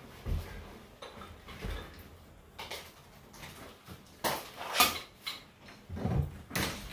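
Irregular scraping, knocking and clattering of wooden ceiling lath and ceiling material being pried and pulled out by hand, in scattered bursts that grow louder about four seconds in and again near the end.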